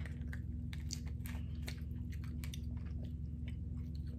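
Close-miked eating sounds: wet chewing and scattered small clicks and crackles as cooked lobster tail meat is pulled from its shell by hand, over a steady low hum.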